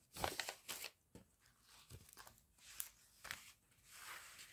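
Faint rustling and crinkling of a cross-stitch kit's paper and plastic packaging being handled, in short, scattered bursts.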